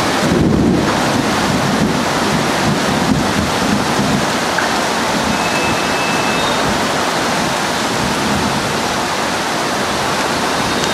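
Heavy rain mixed with hail pouring down in a steady, dense rush.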